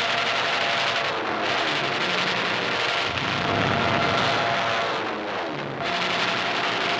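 Steady drone of a fighter plane's engine, with its pitch sweeping down and back up between about three and six seconds in.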